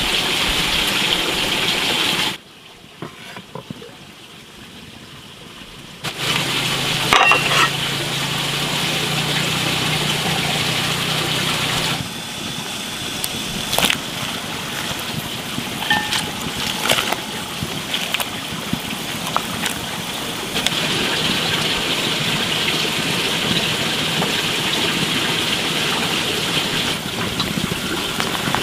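A pot of water boiling: a steady bubbling hiss, with a few sharp clicks and knocks as bok choy is cooked in it. A low steady hum runs under it for about six seconds, after a short quiet gap.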